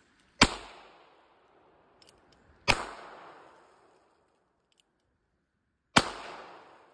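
Three shots from a .22 LR revolver, about two and three seconds apart, each a sharp crack followed by an echo that dies away within about a second.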